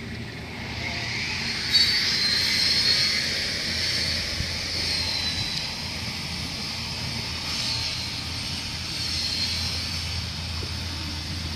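Steady high-pitched rushing hiss with a low hum underneath, growing louder about two seconds in and then holding fairly even.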